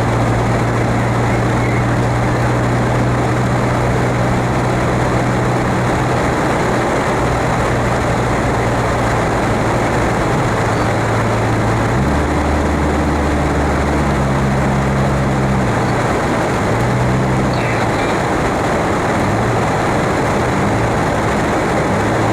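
Car engine and tyre noise heard from inside a moving car, a steady drone over road hiss. About halfway through, the engine's hum shifts to a lower pitch.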